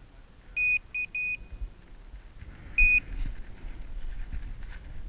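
Electronic beeping: three short high beeps close together, then a single beep about two seconds later, followed by faint handling clicks and rustling.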